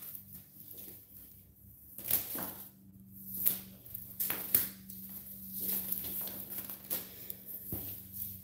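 Scattered light knocks, clatters and rustles of tools and cords being handled and set up, over a faint steady low hum.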